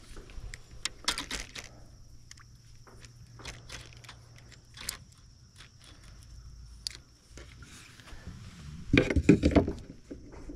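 Scattered small clicks, taps and knocks of a fish and fishing gear being handled in a kayak, with a louder scuffling burst near the end.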